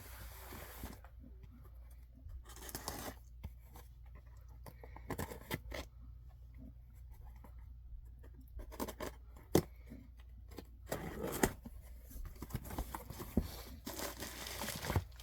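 A cardboard box being opened by hand: packing tape ripped off in several short tears, with clicks and scrapes as the flaps and contents are handled.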